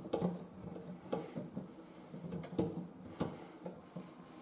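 Handling noise: scattered light clicks and knocks, irregularly about one or two a second, from hands working on the toilet cistern's plastic water-supply fitting, with a knitted sleeve brushing right against the microphone.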